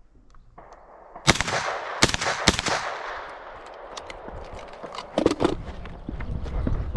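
Three loud pistol shots fired in quick succession, a little over a second apart in total, each trailing off in a long echo across the range.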